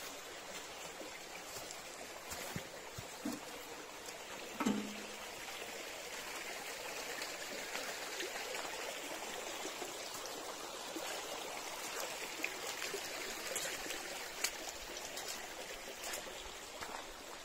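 Forest stream flowing and trickling in a steady wash of water noise, with a few small clicks and one brief louder sound about five seconds in.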